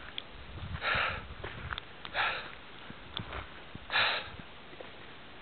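A person breathing hard close to the microphone: three short, loud breaths, a second or more apart, with a few faint clicks between.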